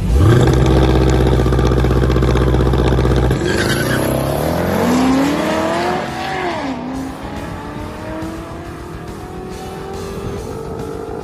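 Jeep Grand Cherokee Trackhawk's supercharged V8 launching on a drag strip alongside another car. The engines first hold a loud, steady note for about three seconds. The pitch then climbs and dips through gear changes as the cars pull away, and the sound fades to a lower, steadier note.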